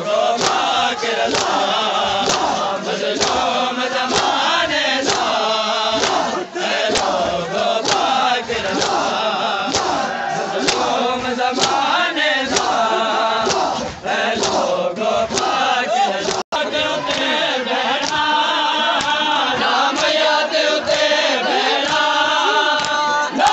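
Men of a Shia mourning group chanting a noha together while beating their chests in matam, the open-hand strikes landing in a steady rhythm about twice a second.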